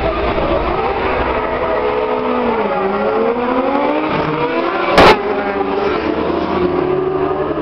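Several racing superbike engines revving hard and accelerating away from a race start, their pitches rising as the bikes pull through the gears. A sudden loud thump comes about five seconds in.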